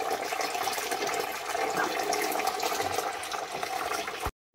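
Freshly pressed apple juice running from a press's hose in a steady stream into a partly filled plastic bucket, pouring and splashing on the foam. It cuts off suddenly near the end.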